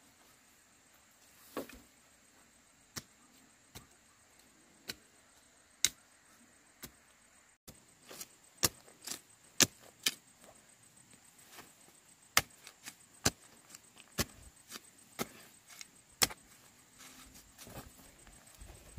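A series of sharp, short taps, spaced about a second apart at first and coming thicker from about eight seconds in, over a faint steady high tone.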